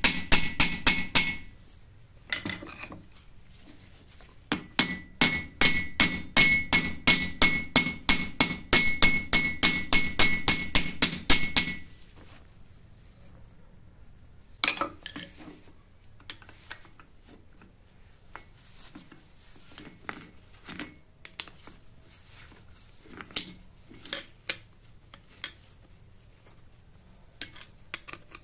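Hand hammer heading a copper rivet in a steel rivet-heading tool on an anvil: rapid strikes, about four a second, each with a ringing steel tone, in a short run and then a longer one that stops about twelve seconds in. One more sharp strike follows, then scattered lighter metal clinks and taps.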